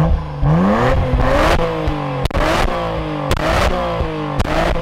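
Nissan R34 Skyline GT-R's RB26DETT twin-turbo straight-six revved in several short throttle blips through a NISMO Weldina NE1 exhaust. The pitch rises and falls with each blip, with sharp clicks between them. The note is very quiet for a GT-R.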